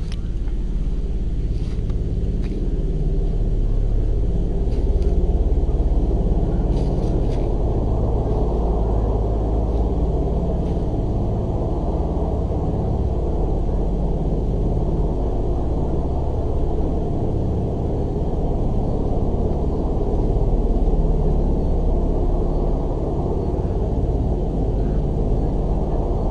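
A loud, low, steady rumbling drone with slow swells in level, of the kind passed around as the mysterious 'strange sounds' heard from the sky or trees. A few faint clicks sound in the first several seconds.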